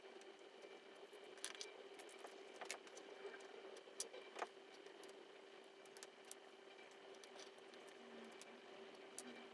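Near silence with a few faint scattered clicks of small machined metal parts and tools being handled while a replica revolver is taken apart, over a faint steady hum.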